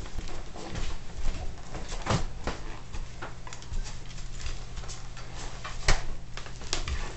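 A Bernese Mountain Dog's claws clicking and tapping on a ceramic tile floor as he shifts about, with scattered knocks and a sharper knock about six seconds in.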